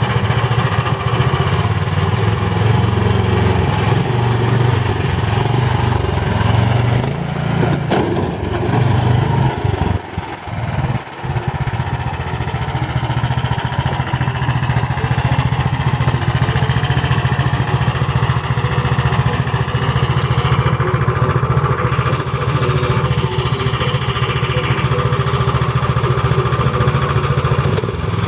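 Small gasoline engine of a go-kart-built mini pickup truck running as it is driven, its speed rising and falling over the first ten seconds. The engine drops back sharply twice about ten and eleven seconds in, then runs steadily.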